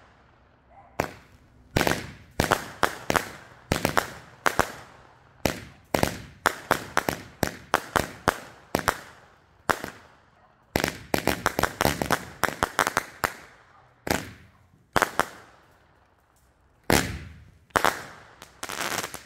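Winda 'Fun Fuel' 50-shot firework cake firing: a rapid run of launches and bursting bangs, often several in quick succession, with brief pauses between groups.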